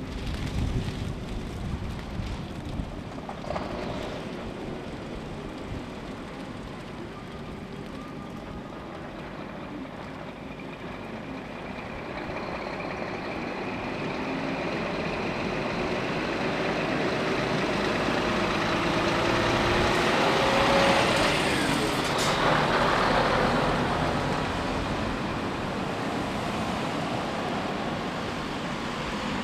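Road traffic: a Scania lorry's engine and tyres grow louder as it approaches and passes, peaking about two-thirds of the way through and then fading, over the running of other vehicles.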